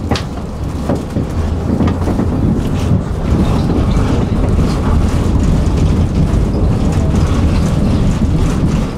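Tram running along the track: a steady rumble of wheels on rails with a few short knocks, growing louder about three seconds in.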